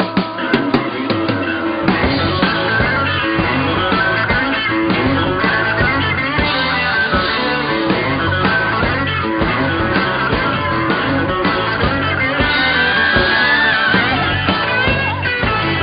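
Rock music: a band playing with electric guitar to the fore over bass and drums.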